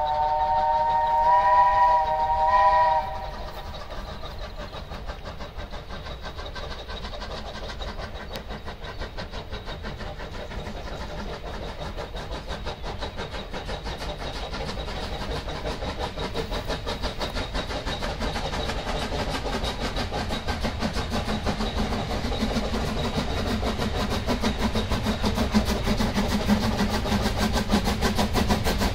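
A steam locomotive's whistle sounds a steady chord of several notes, which cuts off about three seconds in. Then the locomotive works up the metre-gauge line toward the listener, its running sound growing steadily louder.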